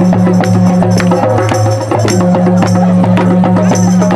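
Folk dance music for a round dance: a steady low drone under a quick, even percussion beat. The drone's upper note drops out briefly about a second in.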